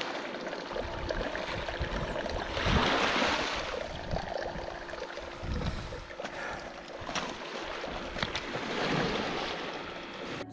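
Water washing and sloshing in uneven surges, loudest about three seconds in, over a faint steady hum.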